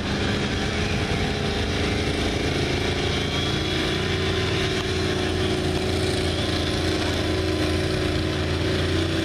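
4x4 pickup truck's engine running hard at steady high revs under load as it drags a weight-transfer pulling sled.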